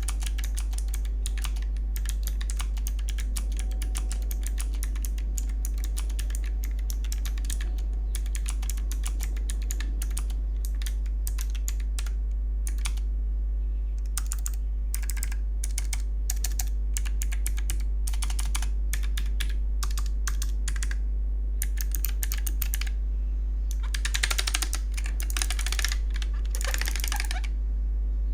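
Typing on a Keychron K1 (v4) low-profile mechanical keyboard with Keychron low-profile blue switches: a rapid, continuous run of key clicks with a couple of brief pauses. A steady low hum runs underneath.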